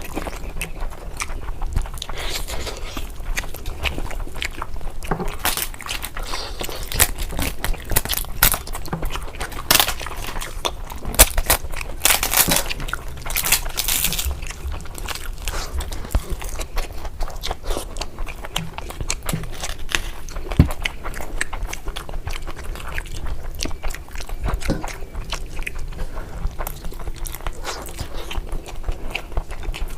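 Close-miked eating sounds: chewing, biting and wet smacking of curry, with many short clicks and crunches that come thick and fast throughout.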